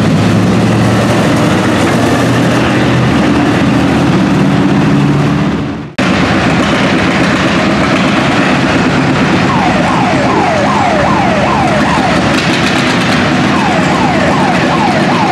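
Antique tractor engines running hard on a dirt pulling track: first a red Cockshutt's engine, fading out about six seconds in. After a cut, a John Deere G's two-cylinder engine pulls under load. In the last few seconds a quick run of short falling chirps, several a second, sounds over the engine.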